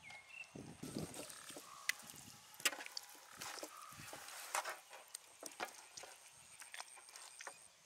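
Hands working red spice paste into raw rabbit carcasses on a steel tray: irregular wet squelches, slaps and small clicks of meat and fingers against the metal.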